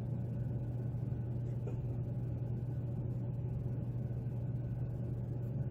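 A steady low hum, with one faint tick about a second and a half in.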